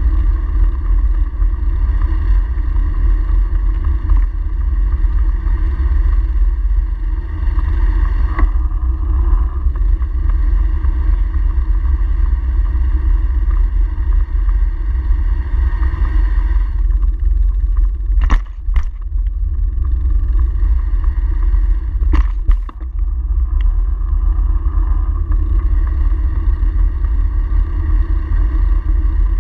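Wind buffeting and tyre rumble picked up by a handlebar-mounted camera on a bicycle riding over brick paving, a steady loud low rumble with a hum that fades about halfway through. A few sharp clicks and knocks come in two short clusters about two-thirds of the way in.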